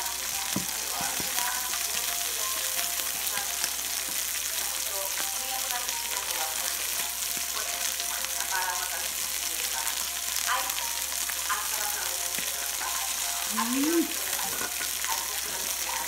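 Hida beef slices sizzling on a tabletop yakiniku grill: a steady frying hiss, with a short rising tone near the end.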